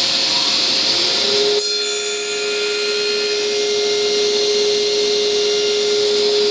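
Table saw running at full speed and cutting off the ends of a tenon on a jig; the sound changes about a second and a half in and then holds steady.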